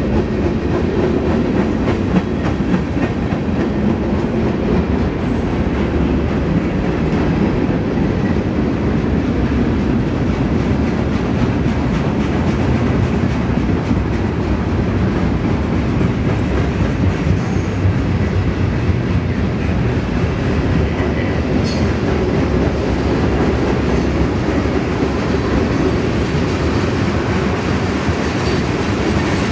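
Mixed freight train's cars rolling past: a steady rumble of steel wheels on rail with quick repeated clicks over the rail joints.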